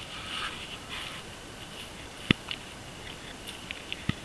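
Footsteps rustling through tall dry grass, with a few short sharp clicks and crackles, the loudest about two seconds in and several smaller ones near the end.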